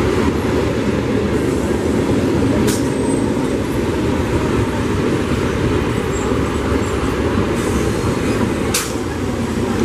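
Electric multiple unit (EMU) suburban local train running past, a steady heavy rumble of wheels on rails. Two sharp clicks sound over it, about six seconds apart.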